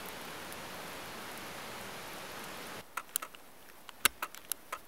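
The McKenzie River rushing, a steady wash of water noise, until it cuts off suddenly about three seconds in. Then a scatter of sharp crunches and clicks, one louder near the end, as a person crouched in snow moves and handles things on the ground.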